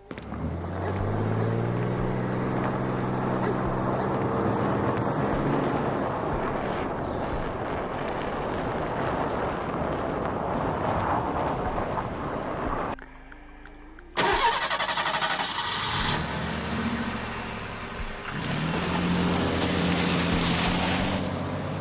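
Car engine starting and revving up, then running steadily. It cuts off abruptly about thirteen seconds in. After a brief lull a louder, hissier stretch of car sound begins, and the engine note comes back near the end.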